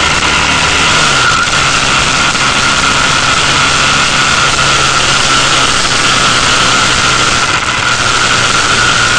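Motorcycle engine running at steady cruising speed, under a heavy rush of wind on the microphone, with a steady high whine over it.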